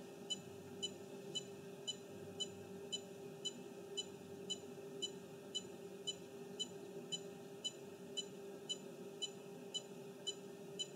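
Topcon 3D OCT Maestro 2 beeping evenly, about twice a second, while its OCT angiography scan runs, over a steady hum.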